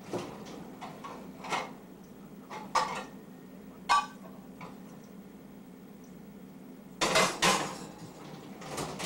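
Dishes and cutlery being handled: a string of separate clinks and knocks, with a louder clatter about seven seconds in, over a faint steady low hum.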